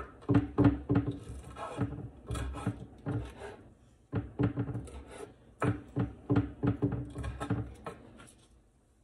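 Kitchen knife chopping peeled raw shrimp on a wooden cutting board: runs of quick knocks with a short pause in the middle, trailing off near the end.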